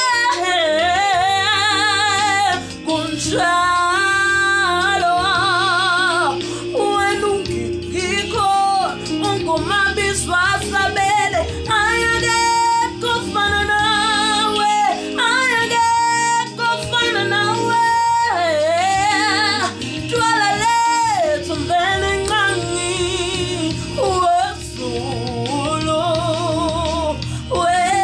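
A woman singing a Zulu gospel worship song solo, belting long held notes with a wide vibrato, over a quieter instrumental backing.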